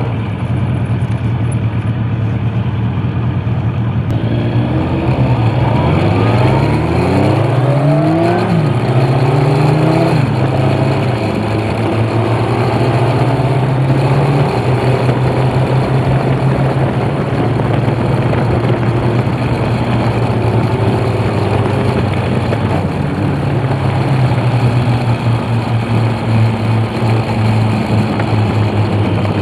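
Two Kawasaki inline-four motorcycles, a GPZ900R Ninja and a ZL900 Eliminator, running together on the road. Their engine note rises and drops back several times between about five and ten seconds in as they accelerate through the gears, then holds a steady cruise.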